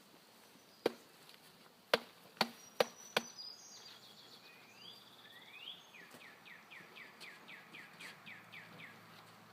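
Five sharp knocks in quick succession, then a songbird singing a run of about a dozen short, quick rising notes.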